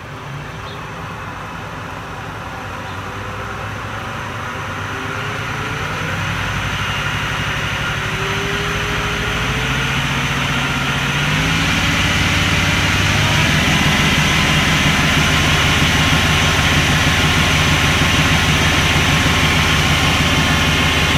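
Boxford A Mk 1 lathe driven by a DC treadmill motor on a speed controller, spinning up. The motor and gear-drive whine climbs in pitch and gets louder over the first dozen seconds, then runs steady at about 1370 RPM.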